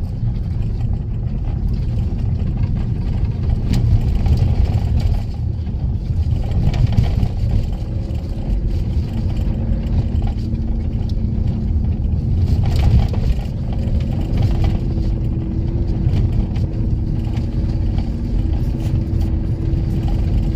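Car engine and tyre rumble of a moving vehicle, heard from inside the cabin. It is a steady low drone with a faint engine hum and small rises and falls in loudness.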